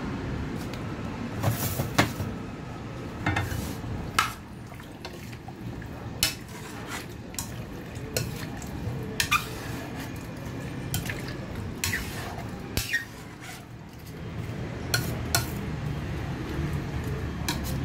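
A cooking utensil stirring chunky food in a stainless steel wok, with scattered irregular clinks and knocks as it strikes the metal pan. A steady low hum runs underneath.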